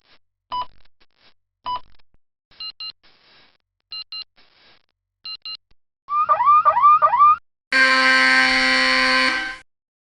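A string of electronic alarm sound effects: single beeps about once a second, then paired beeps, then about four quick rising whoops, then a loud steady buzzer tone lasting about two seconds near the end.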